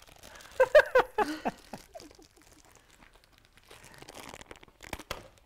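Plastic bag of chocolate chips crinkling and rustling as it is tugged and pulled open by hand. A short burst of wordless voice about a second in is the loudest sound, and there are a few sharp clicks near the end.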